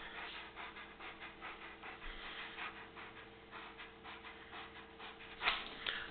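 A large Rottweiler panting quickly and faintly with its mouth open, with one louder breath near the end.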